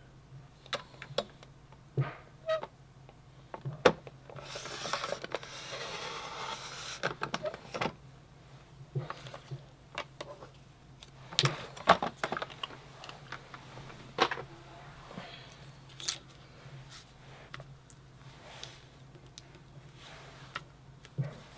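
A paper trimmer's blade carriage slides down its rail and cuts through a paper die-cut, a continuous scraping hiss about 4.5 to 7 seconds in. Before and after it come scattered sharp clicks and taps as the trimmer and paper are handled.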